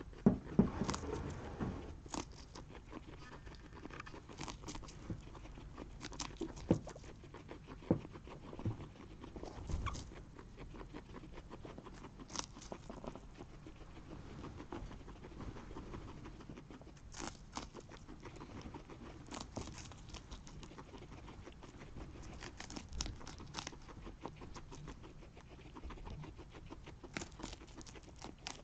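Guinea pigs gnawing kernels off a corn cob: an irregular scatter of small crunchy clicks and rustles in the bedding, busiest in the first couple of seconds.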